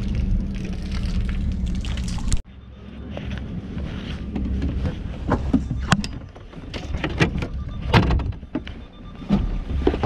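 A vehicle engine running with a steady low hum. After a sudden break, a low rumble carries a run of sharp knocks and clunks from handling on the trailered boat.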